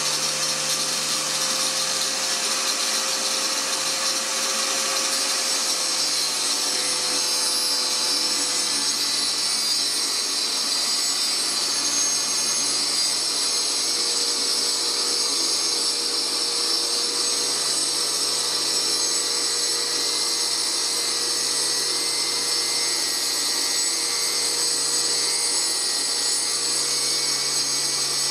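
Electric angle grinder fitted with a toothed cutting disc running steadily with a high whine as it mills a spiral groove into a slowly turning wooden blank on a lathe.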